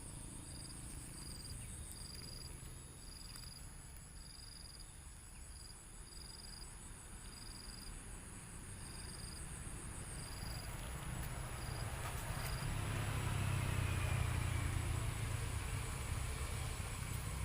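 Insects chirping in short, regularly spaced pulses over a steady high-pitched insect drone. A low rumble swells in the second half, peaks in the last third, then eases off.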